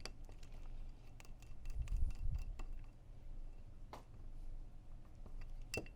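Scattered light clicks and clinks of small tools and gun parts being handled while an airsoft carbine kit's front end is taken apart, with a low handling rumble about two seconds in and a couple of sharper clicks later on.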